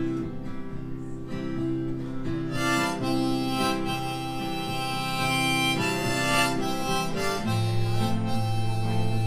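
Harmonica playing an instrumental break over acoustic guitar, the harmonica melody coming in loudly about two and a half seconds in.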